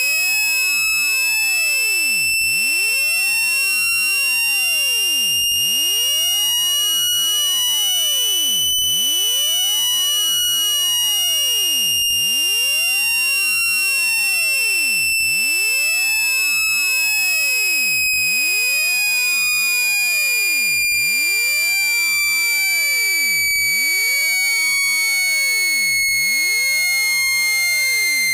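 Speaker-cleaner tone for ejecting water and dust from a phone speaker: a continuous high-pitched tone at an even loudness. It rises slowly in pitch over the first nine seconds or so, then falls slowly until the end.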